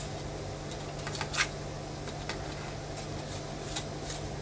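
A few faint rustles and light taps from a card mask being turned over in the hands, the loudest about a second and a half in, over a steady low hum.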